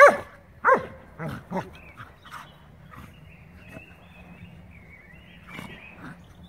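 Dogs barking in rough play: two loud, sharp barks that drop in pitch right at the start, then two shorter, softer barks about a second later.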